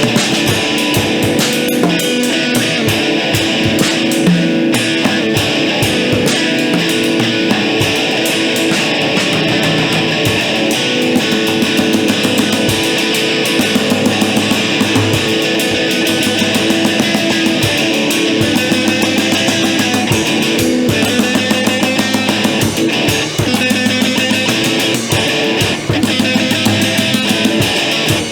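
A rock band playing loud, dense music live in a room, led by electric guitar with a drum kit beating throughout.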